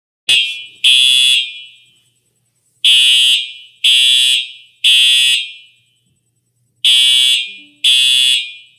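Simplex 4901-9820 TrueAlert electronic fire alarm horn sounding loudly in the temporal-three evacuation pattern: groups of three half-second blasts about a second apart, with a longer pause between groups, each blast echoing briefly. It is the building's fire evacuation signal, set off by a pulled manual pull station.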